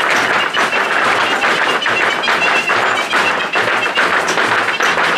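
Rapid zapateado footwork: dancers' heeled shoes stamping and tapping on a stage platform in a dense, fast rhythm, with Mexican folk music playing.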